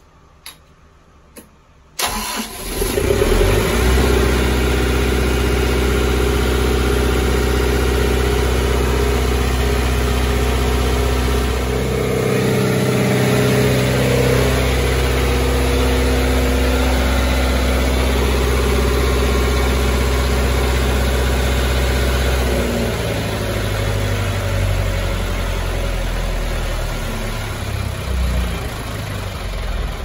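Kubota V3600-T four-cylinder turbo-diesel engine starting about two seconds in and then running steadily, its note shifting around halfway through and again later. It now fires and runs because the new fuel shut-off solenoid lets fuel reach the injection pump.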